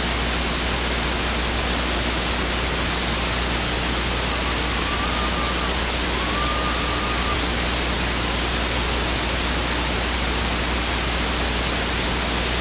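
Steady, even static-like hiss with a low hum beneath it, and two faint wavering tones about midway.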